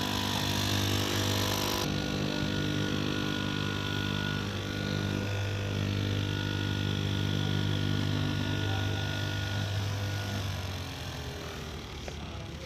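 Electric straight-knife fabric cutting machine running, its motor driving the vertical blade through a thick stack of cloth layers with a steady hum. The hum dies away about ten seconds in.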